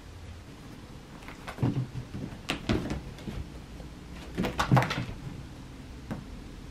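Cats pouncing and scrambling after a wand toy on carpet and wood floor: two short bursts of thuds and scuffling, about a second and a half in and again around four and a half seconds.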